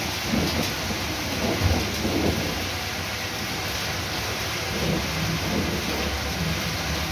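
Heavy rain falling steadily, an even hiss of downpour on street and paving, with a few brief low rumbles about two seconds in and again around five to six seconds in.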